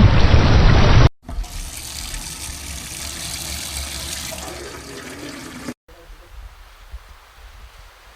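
Short sound-effect clips cut abruptly one after another. A loud rushing noise lasts about a second, then a softer stretch like running water, then a fainter one near the end.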